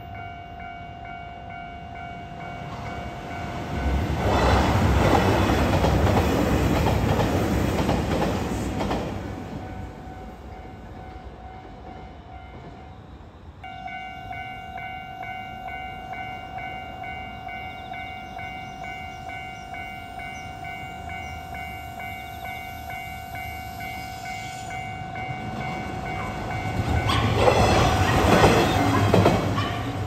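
Japanese level-crossing warning bell ringing steadily, stopping briefly about halfway through and then starting again. Twice a diesel train clatters past, loudest a few seconds in and again near the end.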